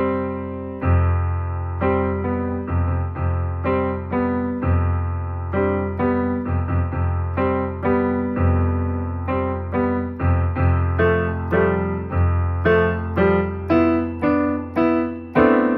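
Piano playing alone, striking chords about once or twice a second over held bass notes, each chord fading before the next; the instrumental close of the song after the voice has stopped.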